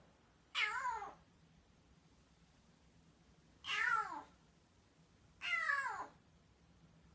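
Black kitten meowing three times, each meow short and falling in pitch. This is its early voice from just after rescue, which the owner describes as rough and hoarse.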